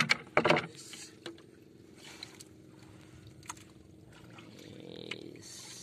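Live fish, red devils and tilapia, flapping and splashing in shallow water in the bottom of a boat. A few sharp slaps come in the first half-second, then quieter scattered splashes and knocks.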